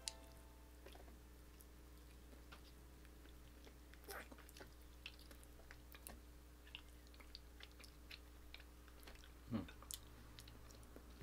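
Faint close-up chewing and mouth clicks of a person gnawing meat off a turkey neck bone held in the fingers, with a couple of louder bites, one about four seconds in and one near the end.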